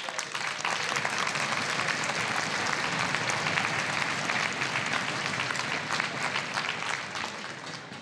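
Large audience clapping, a dense sustained applause that dies down near the end.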